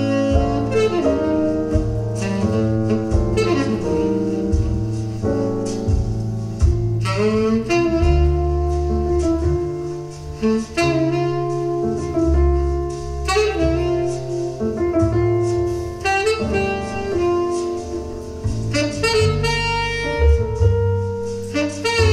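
Jazz with a saxophone lead over a strong bass line, played back through a 3D-printed 5.1 speaker system with Dayton Audio 2-inch full-range satellites and a Tang Band 6.5-inch paper-cone subwoofer.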